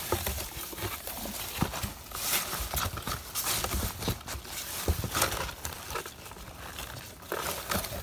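Close-up handling noise: irregular rustling and crackling of grass and a cardboard box, with scattered small knocks and clicks.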